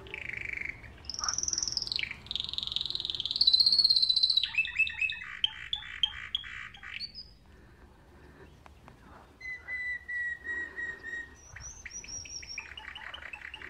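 Songbirds singing, one whistled phrase and trill after another. There is a loud high phrase in the first seconds, a fast buzzing trill after it, a quieter stretch past the middle, then thin high notes, a steady whistle and another trill near the end.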